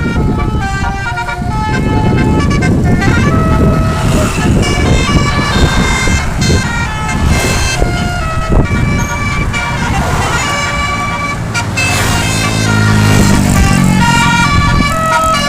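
Bus basuri horn, a set of tuned air-horn trumpets, playing a melody note by note over the low rumble of the bus's engine. The low rumble grows louder about twelve seconds in.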